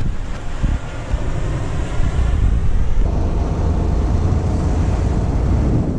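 Wind buffeting the microphone as a loud low rumble. About halfway through it turns steadier, with a boat running under way through the water.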